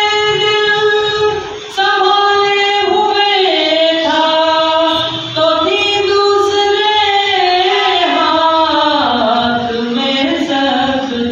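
A man singing a naat, an Urdu devotional poem, solo, holding long, high, slowly ornamented notes. He breaks briefly for breath about two and five seconds in.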